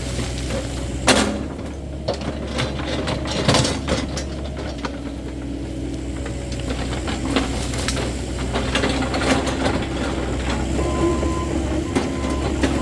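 CAT 308E2 mini excavator's diesel engine running steadily while working, with repeated knocks and cracks, the loudest about a second in. Near the end its travel alarm starts beeping.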